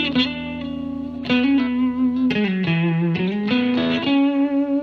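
Electric guitar with Black-eyed Susan single-coil pickups, played through a Fender Vibrolux Reverb amp with a ZVex Distortion pedal. It plays a driven lead phrase of bent and sliding notes, dipping lower in the middle and ending on a long held note that wavers.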